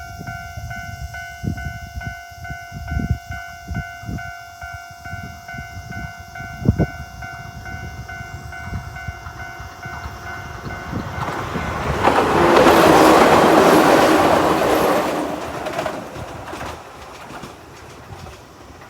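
Electronic level-crossing warning bell ringing in a steady rapid pattern with the standard crossing tone, then a train passes loudly from about twelve seconds in, dying away by about sixteen seconds.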